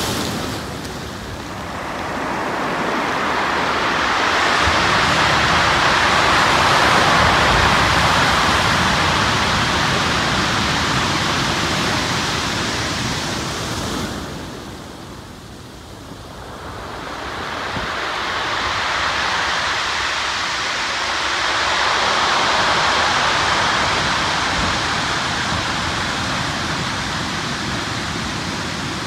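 Sea surf breaking and washing over a pebble beach, a steady rush of water that swells and fades in two long surges, dipping briefly about halfway through.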